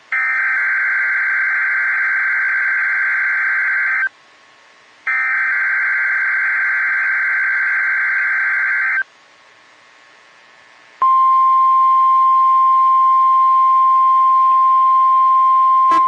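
NOAA Weather Radio emergency-alert signal: two bursts of warbling digital SAME header data, each about four seconds long with a short gap between them. A couple of seconds later comes the steady single-pitch warning alarm tone, which starts about eleven seconds in and holds.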